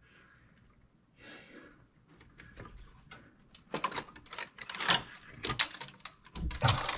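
Sharp metallic clicks and clinks of a hand tool and fittings against a Quadrajet carburetor as its vacuum lines are worked off, in a quick irregular run starting just under four seconds in.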